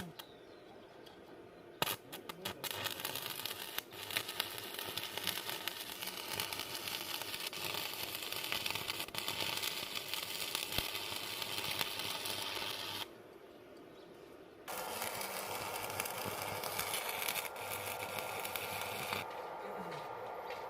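Stick (MMA) arc welding with an iBELL M220-76 inverter welder, 3.15 mm electrode at about 120 A: a few sharp clicks as the arc is struck, then a steady crackling hiss. The arc breaks off about thirteen seconds in and is struck again a second and a half later.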